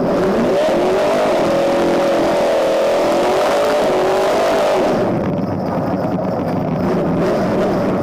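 Small-block Chevy V8 of a drag-racing bracket car heard from inside the cabin, held at high revs for about five seconds, then the throttle comes off and it drops back to a lower running.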